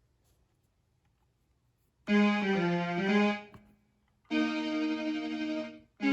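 Akai MPK Mini Play MK3 mini keyboard playing one of its built-in piano-like sounds. After about two seconds of silence, a short passage of changing notes sounds and fades, then a held chord rings for over a second, and another chord starts at the very end.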